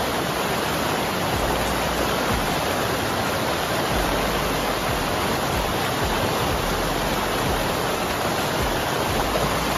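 Shallow, fast mountain river rushing over rocks in a loud, steady roar of water.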